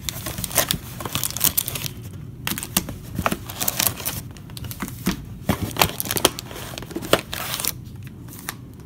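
Foil trading-card packs crinkling and rustling in irregular crackles as a stack of them is handled and lifted out of a cardboard box, quieter near the end.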